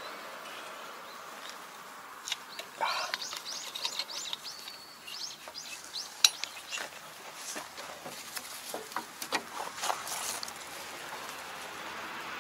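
Scattered light metallic clicks and clinks as gloved hands work a lever on a Kobashi rotary tiller's gearbox, trying a part that won't move. A burst of bird chirps comes a couple of seconds in.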